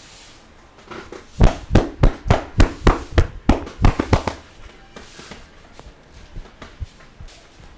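Massage strokes: hands striking the body in a quick series of about eleven sharp slaps, three or four a second, starting about a second and a half in and stopping a little after four seconds.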